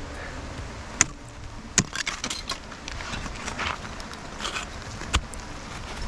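Ice axe picks striking hard waterfall ice: three sharp hits, about a second in, near two seconds and near the end, with bursts of crunching and scraping ice between them.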